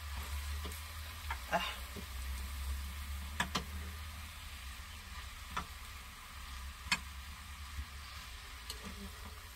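Cabbage and onions sizzling faintly in a skillet as they are stirred, with scattered sharp clicks of the stirring utensil striking the pan.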